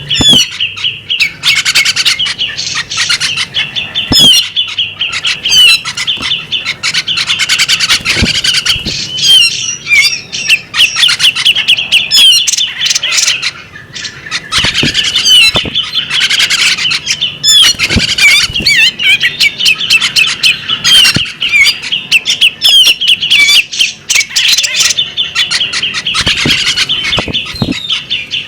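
Female bearded magpie robin singing a long, unbroken stream of fast chirps, whistles and short trills, with a few sharp clicks now and then.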